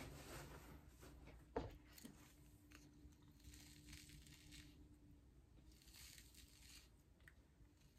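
Faint scratching of a hair brush's bristles being stroked through gel-slicked hair, with one soft knock about a second and a half in.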